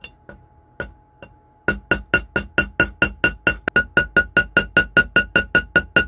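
Small metal hammer tapping the end of a silver hinge pin to spread it into a rivet head: a few light taps, then about a second and a half in a steady run of ringing strikes, about five a second.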